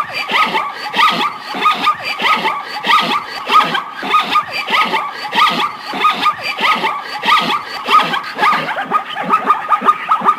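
Animal calls: a dense, rapid chatter of short squeaky calls, several a second, without a break.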